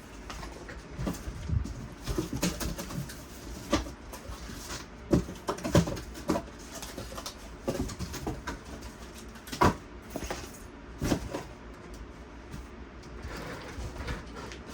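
Cardboard packaging and plastic-cased tool parts being handled and unpacked: irregular rustling and scraping with scattered knocks and a few sharper clicks.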